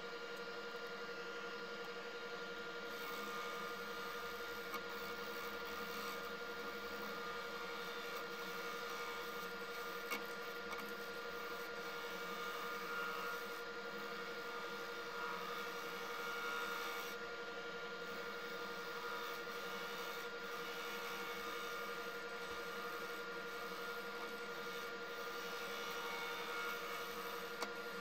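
Wood lathe running with a steady motor whine while a turning gouge cuts a spinning blank of cactus skeleton cast in Alumilite deep-pour resin, giving a continuous scraping hiss that swells a little now and then.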